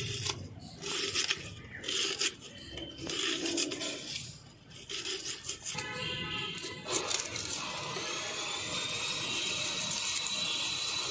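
Irregular clicking and rustling of hands working through raw prawns in a woven bamboo basket. From about seven seconds in, a thin, steady high whine rises in and holds over a soft hiss.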